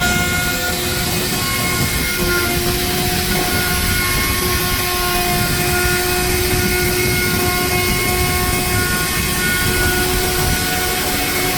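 Woodworking power tool running steadily, a constant loud noise with sustained tones over it that change pitch every second or two.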